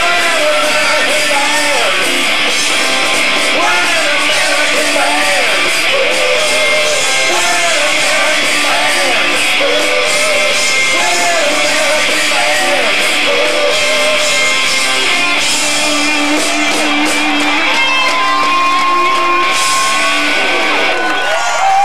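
Rock band playing live: electric guitars, drums and singing, with a long held note near the end.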